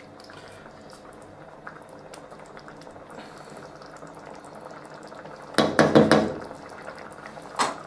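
Thick chilli sauce bubbling in a pan as it comes to the boil, a steady low bubbling. About five and a half seconds in there is a louder noise lasting under a second, and near the end a short knock.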